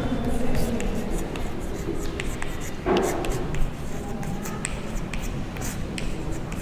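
Chalk writing on a blackboard: irregular scratches and taps as a line of words is written.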